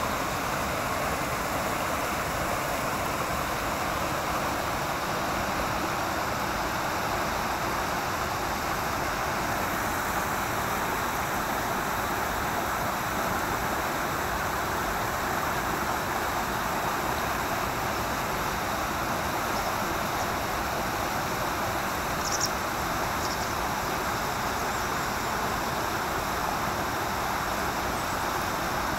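Steady rush of a shallow rocky stream pouring over a small weir. A short faint tick comes about three-quarters of the way in.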